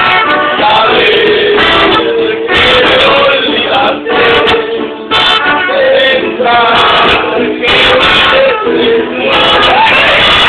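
Loud music with a man singing.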